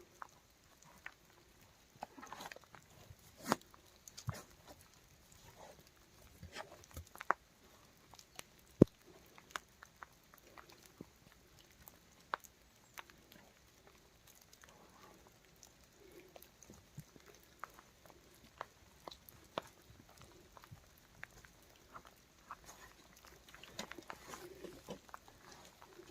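Wild boar moving and snuffling close by: scattered clicks, knocks and rustles, with a few soft low grunts, the loudest two sharp knocks about three and a half and nine seconds in.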